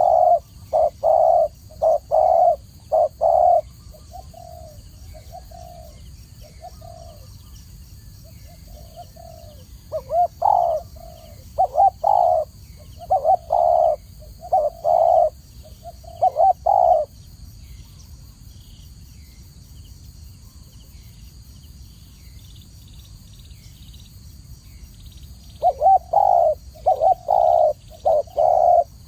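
Spotted dove cooing in phrases of short, repeated coos. The phrases come in runs, softer for a few seconds after the opening run, then stop for about eight seconds before starting again near the end.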